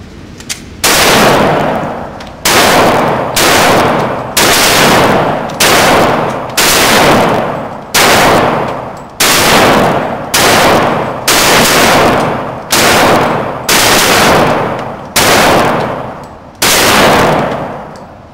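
Glock 23 pistol firing .40 S&W rounds in steady slow fire, about fourteen shots roughly a second apart, each with a short echoing tail.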